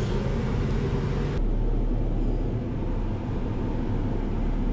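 Bergmann C815 dump truck's diesel engine running steadily as the truck reverses slowly. A high hiss cuts off suddenly about a second and a half in.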